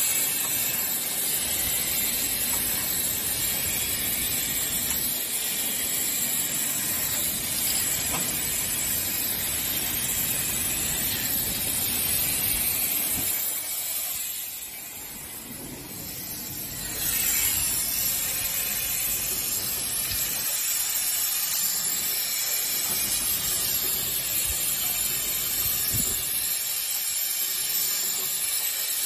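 CGFD12-12-6 rotary carbonated-drink rinsing-filling-capping machine running with a steady hiss and a few faint clicks. The hiss drops away for a few seconds about halfway through, then comes back.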